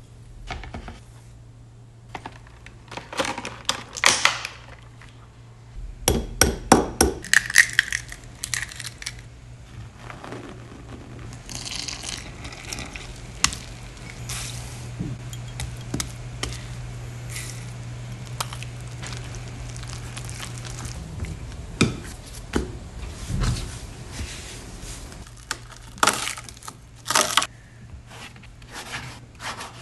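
Baking prep sounds: glass bowls and dishes clinking and being set down, and ingredients tipped into a glass mixing bowl. Near the end, a plastic bench scraper knocks and scrapes as it cuts dough on the work surface. A low steady hum runs underneath until about two-thirds through.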